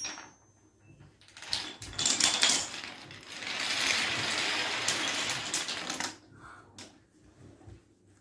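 Wooden dominoes toppling one after another in a chain reaction. Scattered clicks build into a dense, rapid clatter lasting a few seconds, then thin out to a few last clicks.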